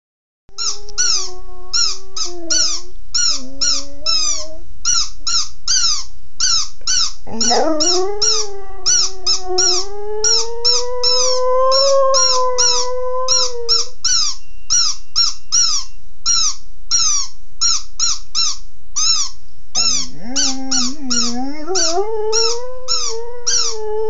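Pit bull terrier mix howling in long notes that rise in pitch and are held for several seconds. Over the howls runs a steady train of short, high squeaks, about three a second, from a squeaky dog toy being squeezed.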